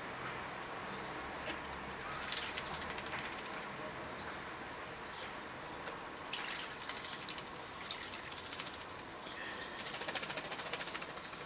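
Common starling bathing in a stone birdbath: bursts of rapid wing-fluttering and splashing that come in several spells. Short high chirping notes from birds come in between.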